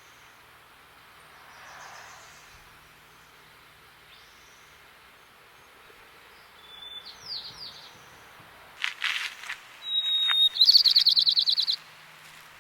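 White-crowned sparrow singing: faint thin notes and short falling calls during the first two-thirds, a few sharp calls about nine seconds in, then a loud song near the end, a clear whistled note followed by a fast trill.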